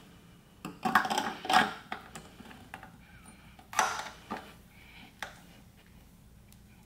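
Harley-Davidson chrome flush-mount fuel cap being worked in and out of the tank's filler neck, pushed in and twisted to lock, giving small sharp metal clicks: a cluster about a second in, then a few single clicks later.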